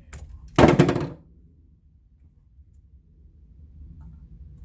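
Diagonal cutters biting and pulling the insulation off an ABS sensor wire: a short, loud crackling snip about half a second in, after a faint click.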